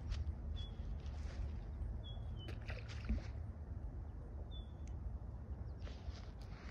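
Low, steady wind rumble on a phone microphone lying on the ground, with faint rustles and clicks. A bird's short, high, falling chirp repeats about every two seconds.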